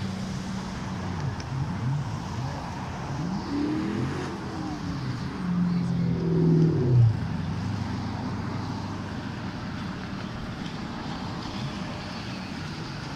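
Engines running with pitch that rises and falls as they rev and pass. The loudest one holds a steady note, then drops in pitch as it goes by about six to seven seconds in.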